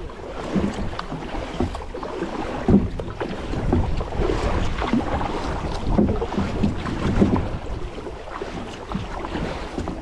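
Kayak paddle strokes dipping and splashing in river water, irregular and ongoing, with wind rumbling on the microphone.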